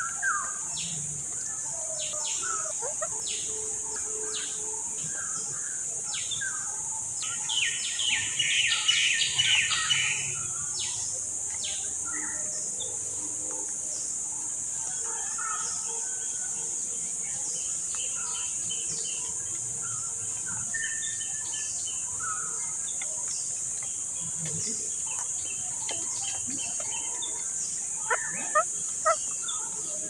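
A steady high-pitched insect drone under scattered bird chirps. About eight seconds in there is a loud run of rapid chirps lasting a couple of seconds, and a few sharp clicks come near the end.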